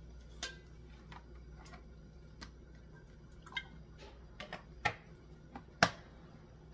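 Scattered light clicks and knocks from handling a large plastic jug of canola oil as it is poured and its cap twisted shut, the sharpest click near the end.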